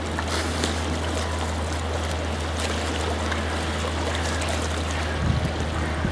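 Lapping lake water, an even wash of noise over a steady low hum.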